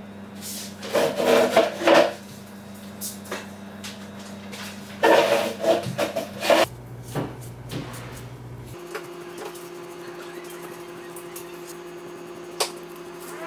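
A metal rod scraping and prying against a diecast model car body as it is levered apart: two bursts of rasping scrapes and clicks, about a second in and again around five seconds in. Then fainter rubbing with a few light ticks over a steady low hum.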